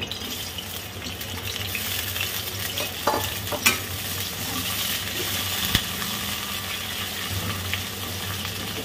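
Thick-sliced onions sizzling as they fry in hot oil in a kadhai, stirred with a flat spatula that knocks against the pan a few times.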